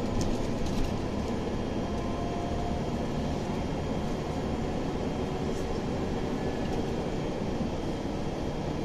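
Inside a moving Scania OmniLink city bus: steady engine and road rumble, with a faint high whine and a few light rattles about a second in.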